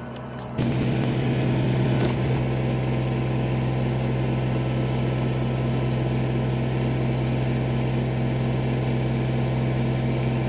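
An engine running steadily at one constant speed, starting abruptly just after the start, then dropping in pitch at the very end as it winds down.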